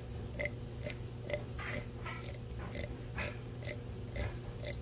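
Mercedes M119 V8 oil pump turned by hand at its drive gear, making a soft rhythmic sucking, about two slurps a second. The pump is drawing as it should and turns smoothly, without grinding.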